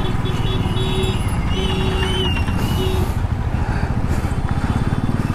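Motorcycle engine running with a dense low beat as the bike rides through traffic. Other vehicles' horns beep several times in the first three seconds.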